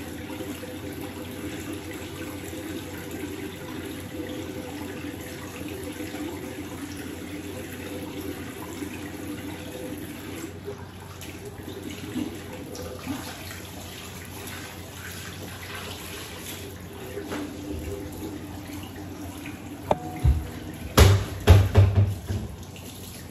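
Tap running steadily into a bathroom sink while the face is washed. Several loud knocks near the end.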